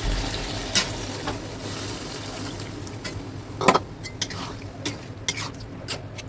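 Chicken curry sizzling in a kadai for the first half, then a spoon knocking and scraping against the pan as the curry is stirred after water goes in, with one sharp clack a little past halfway.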